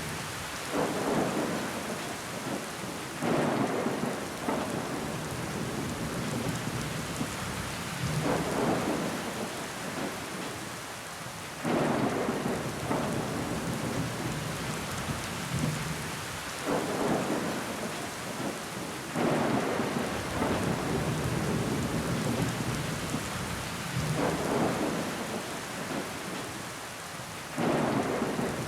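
Rain falling against a window pane, a steady hiss that swells louder every few seconds as heavier bursts of rain come through.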